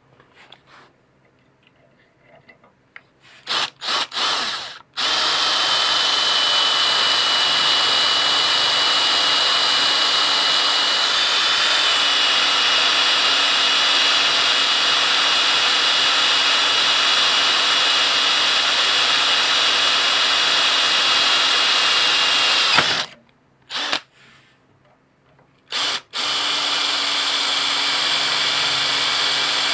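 Power drill boring a hole through a garden tractor's steel frame rail: a few short trigger blips, then a long steady whine as the bit cuts. It stops about 23 seconds in and starts again a few seconds later.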